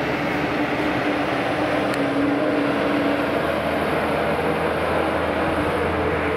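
Airbus A321 jet engines heard from afar as the airliner touches down and rolls out: a steady roar with a humming tone in it.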